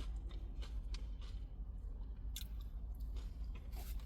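Close-up chewing of Doritos tortilla chips: crunching, with many short, crisp crackles.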